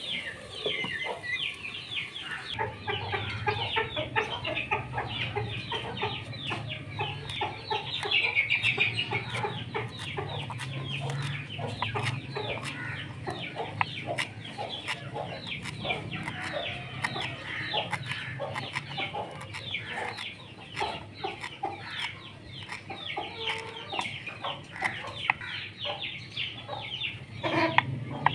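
Chickens clucking steadily in the background, with a knife chopping on a wooden board in quick regular strokes from a few seconds in.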